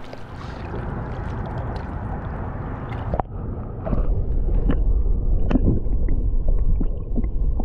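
Water sloshing near the surface. About four seconds in, the microphone goes underwater and the sound turns to a muffled low rumble with gurgling and scattered clicks and knocks.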